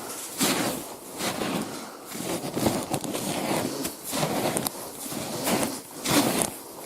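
Footsteps crunching through deep snow, about one step a second.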